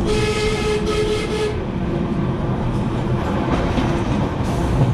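Passenger train running out of a station, heard from inside the carriage as it gathers speed, with a steady rumble and wheel noise. A steady pitched tone sounds for about a second and a half at the start.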